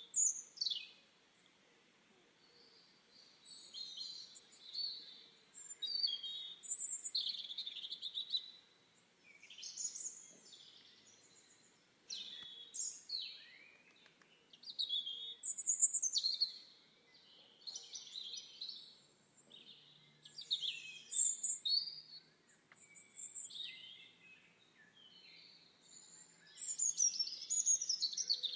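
Wild songbirds singing and chirping in a forest, short bright phrases following one another every second or two.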